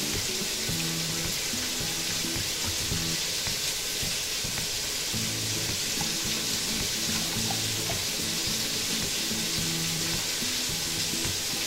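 Smoked sausage frying in a pot, a steady sizzling hiss, with soft background music of short repeating notes.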